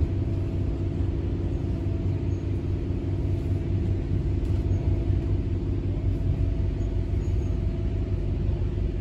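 Steady rumble of a moving electric passenger train heard from inside the carriage, with a faint constant hum over it.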